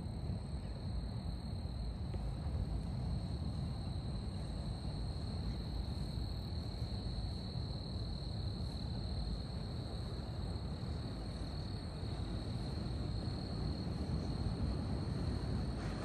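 Ocean surf heard as a steady low rumble and wash, with a thin, steady high-pitched whine above it.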